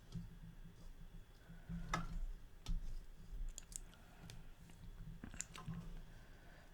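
Faint, scattered clicks and mouth noises of someone eating and chewing, with a handful of sharper ticks spread through.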